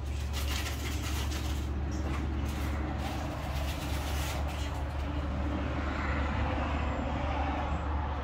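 A steady low rumble with a hiss of background noise, and a few brief rustles in the first half.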